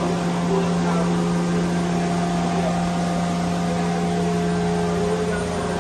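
A 2006 Mazak VCN410A vertical machining center powered up and humming steadily, with a constant low tone and a few fainter steady tones above it.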